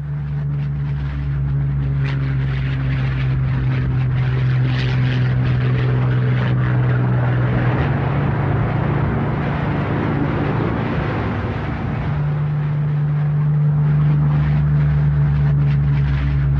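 Messerschmitt Bf 109 fighter's piston engine running at high power in a low pass along the runway, a steady propeller drone that turns rougher and noisier for a few seconds in the middle before settling back to the steady note.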